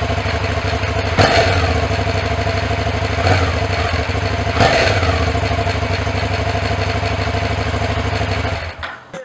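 Aprilia Shiver 750's V-twin engine idling steadily, blipped three times with the throttle, each rev rising and falling back to idle, before the sound drops away near the end.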